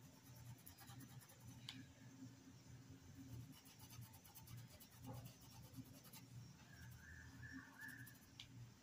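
Faint scratching and rubbing of a paintbrush working paint into a cotton dish towel, over a low steady hum.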